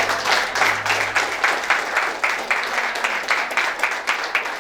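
A church congregation clapping their hands together.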